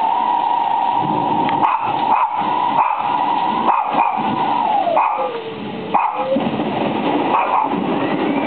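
Dog howling at a thunderstorm: one long, held howl that drops in pitch about five seconds in, then howling again a second later. Rain and wind noise run steadily beneath.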